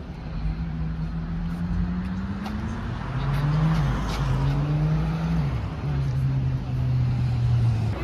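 Car engine running on the street, its hum rising in pitch over the first two seconds, then stepping down and up again a few times.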